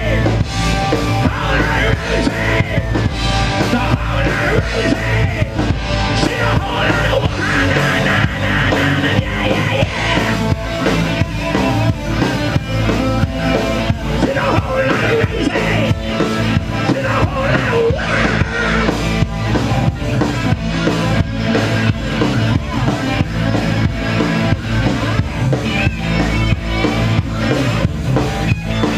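Live rock band playing through a PA: drum kit keeping a steady beat under distorted electric guitars, with a singer.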